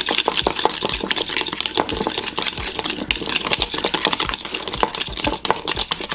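Wire whisk beating mayonnaise and diced chipotles in a bowl: a quick, steady run of wet clicking and scraping strokes as the whisk hits the bowl and churns the thick mixture.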